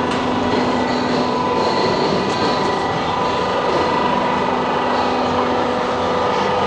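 Decorative panel roll forming machine running: a steady mechanical drone with a constant hum and no breaks.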